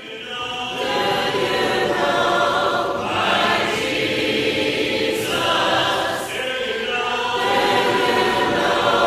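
Choir singing a hymn a cappella, fading in at the start, with held chords that change about every second.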